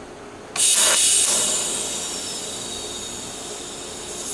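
TIG torch arc tacking stainless steel sanitary tube: a sudden loud, high-pitched hiss starts about half a second in, strongest for under a second, then fades slowly.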